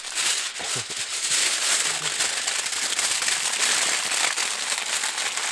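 Aluminium foil being crumpled and crinkled by hand: a dense, continuous crackling rustle.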